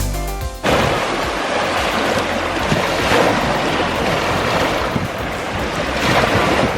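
Lake Michigan waves washing onto the beach, a steady rushing surf, with wind buffeting the microphone.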